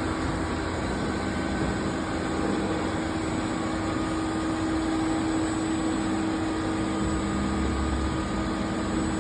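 Toshiba BTD-130H.R22 CNC table-type boring mill running with a steady hum and a low rumble while its axis traverses along the way covers. A lower hum joins about six seconds in.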